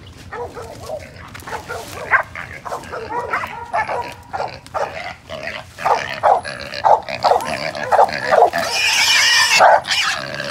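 A wild hog squealing over and over as hunting dogs catch and hold it, with dogs barking mixed in. One long, loud, shrill squeal near the end.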